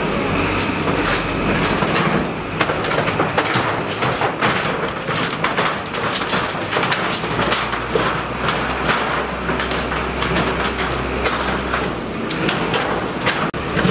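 Hydraulic demolition machine ripping at a building's eaves and corrugated metal roofing: repeated crashes, scraping and clattering of sheet metal and debris over its diesel engine, whose low drone grows louder for several seconds past the middle.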